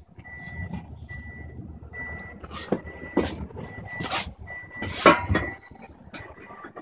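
About four sharp knocks, the loudest about five seconds in, over a high beep that keeps switching on and off like a reversing alarm.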